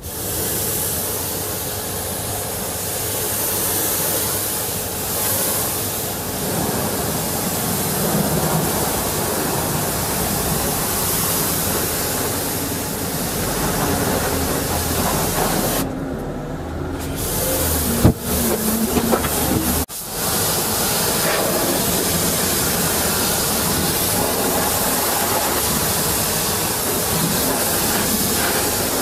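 Hot-water pressure washer jet spraying a truck's underside and wheels: a steady loud hiss of high-pressure water, broken briefly about two-thirds of the way through, with two sharp clicks.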